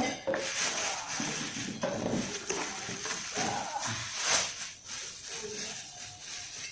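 A cooking pot being unpacked and handled: rustling of packaging with knocks and clinks of the pot and its lid, and one louder knock about four seconds in.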